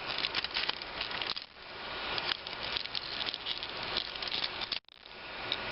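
Plastic Transformers action figure being handled and transformed: scattered small clicks and rattles of plastic parts over a steady hiss. The sound cuts out briefly about five seconds in.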